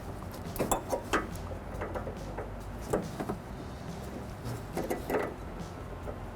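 A screwdriver prying a small sensor off a door lock cylinder inside a car door: a handful of short clicks and taps in small clusters, about a second in, near three seconds and near five seconds.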